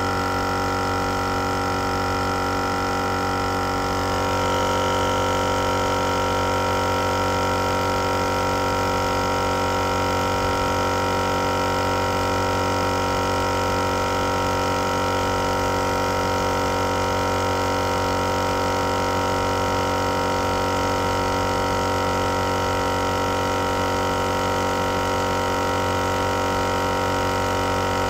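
GSPSCN dual-cylinder 12V portable air compressor running steadily with an even mechanical hum, pumping up a truck tire that is close to its target pressure.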